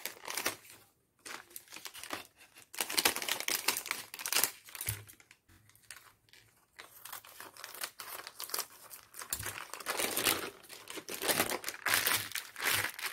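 A foil-lined plastic food packet crinkling and rustling in irregular bursts as it is cut open with scissors and then handled and opened out flat.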